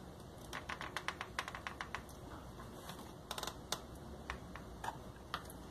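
Faint, irregular clicks and taps of a small screwdriver tip prying at a plastic latch on a Lorenzetti Acqua Ultra electronic shower's connector, with a quick cluster of clicks about three seconds in.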